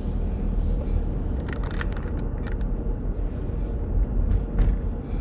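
Car cabin noise while driving: a steady low rumble of engine and tyres on the road, with a few light clicks or rattles.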